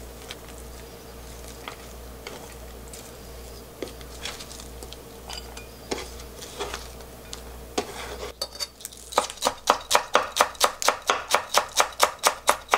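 Kitchen knife chopping green onion on a wooden cutting board: rapid, even strokes about five a second, starting about nine seconds in. Before that, only a few light taps.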